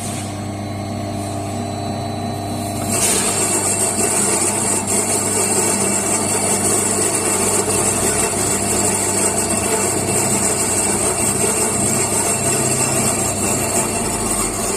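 Electric coffee grinder's motor running steadily, getting louder and brighter about three seconds in, then grinding on evenly.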